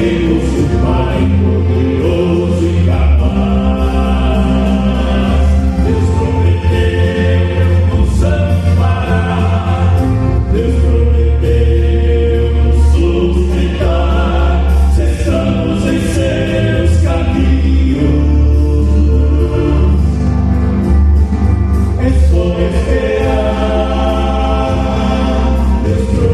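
Gospel hymn sung by a vocal quartet in harmony, over a steady bass accompaniment.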